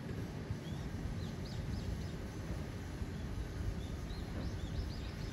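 Hakone Tozan Cable Car's new car pulling away from the station with a low steady rumble. Small birds chirp in quick series of high notes, about a second in and again from about four seconds in.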